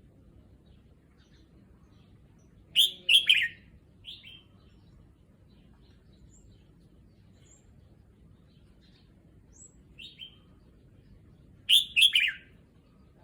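Red-whiskered bulbul singing two short song phrases about nine seconds apart, each a quick run of a few notes, with softer single calls just after the first phrase and just before the second.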